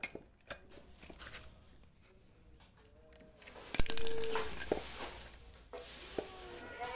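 Saw chain and bar being handled on a chainsaw, metal clicking and scraping as the chain is worked loose from the bar, with a louder clatter about four seconds in.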